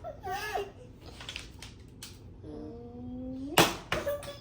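A small child babbling and then holding a long vocal sound, with two sharp knocks near the end.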